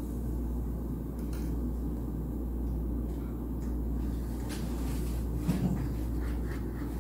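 Steady low background hum of a small room, with a few faint soft clicks and rustles from hands handling a thread and wire on a stone countertop.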